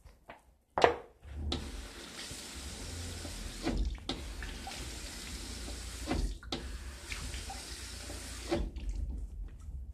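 A tap running into a sink for about seven seconds, with two brief breaks in the flow, after a single click about a second in.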